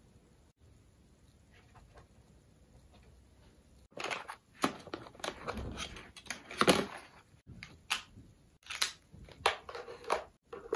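Quiet room tone for about four seconds, then a run of clicks and short rustles from pens, paper and a tablet being handled on a small table, with the loudest click a little before the end of the run.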